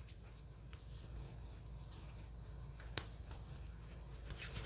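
Faint soft rubbing of fingertips spreading serum over facial skin, with a small click about three seconds in.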